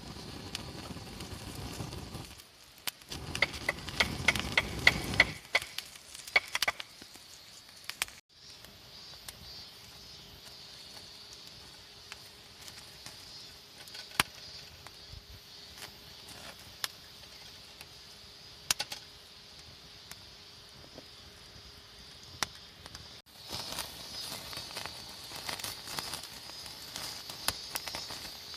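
Insects chirring steadily, with scattered sharp clicks and knocks over them and a busier run of clicks and clatter a few seconds in.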